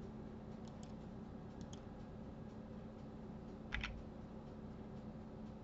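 A few faint clicks of a computer keyboard and mouse, the loudest a short cluster near four seconds in, over a low steady hum.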